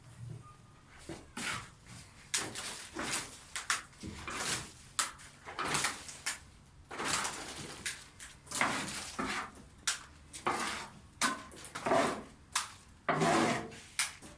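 Plaster of Paris being beaten by hand in a container: a run of irregular scraping, stirring strokes, about one or two a second.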